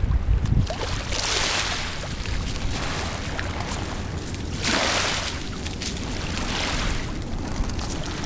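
Wind buffeting the microphone outdoors: a low rumble, with two swells of hiss, one about a second in and one near the middle.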